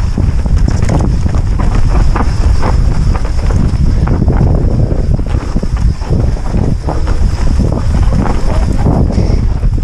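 Wind buffeting a helmet-mounted camera's microphone on a fast mountain-bike descent, over the heavy rumble of tyres on a loose dirt trail. Frequent knocks and clatter come from the Orbea Rallon's frame and components as it rides over rough ground.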